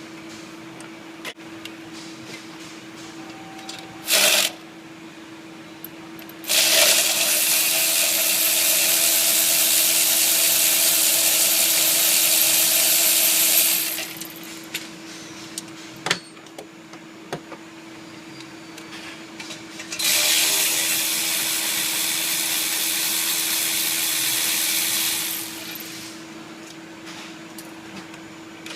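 A power tool running in two long stretches, about seven and then about five seconds, each starting and stopping abruptly, after a short burst about four seconds in.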